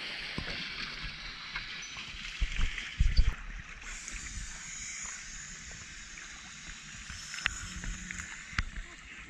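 Sea water churning and splashing as divers drop in off an outrigger boat, with a few low thumps about two and a half to three seconds in. Then small waves slosh and lap at the surface.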